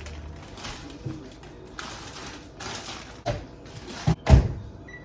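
Kitchen handling sounds: rustling and light clatter of things being moved, a knock about three seconds in and a louder knock about a second later. A short electronic beep starts right at the end.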